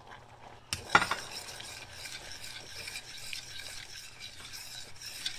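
Metal spoon stirring half-and-half in a small stainless steel saucepan, a steady scraping swish, with one sharp knock about a second in.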